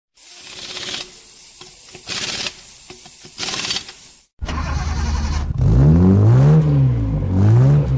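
Intro sound effects: three airy whooshes, then a car engine starts after about four seconds and revs up and down several times.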